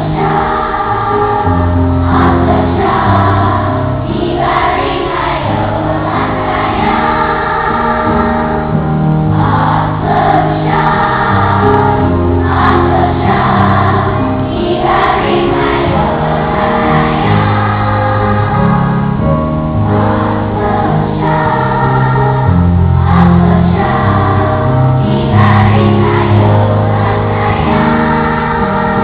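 A choir singing a song with accompaniment, the voices holding long notes over a steady bass line.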